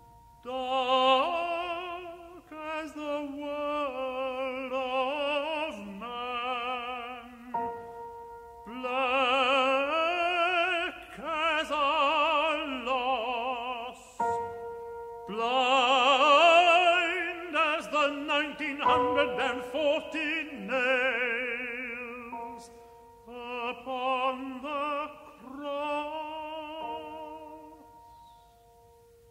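Tenor singing a slow free recitative with wide vibrato, phrase by phrase, over sustained piano chords. The phrases grow louder and more forceful through the middle, then thin out, and the last phrase dies away over a soft held chord.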